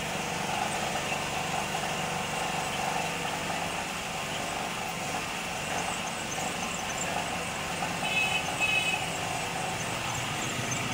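Steady mechanical hum of a Kyocera TASKalfa photocopier running, with a quick run of short high beeps about eight seconds in.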